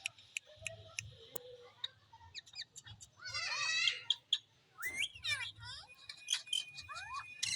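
Pet parrot chirping and squawking: a run of short chirps and quick rising and falling whistles, with one longer harsh squawk about three seconds in.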